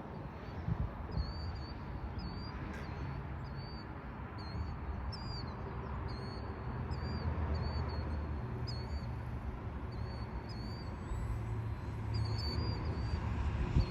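A bird calling over and over with short, hooked chirps, about one or two a second, over a low steady rumble.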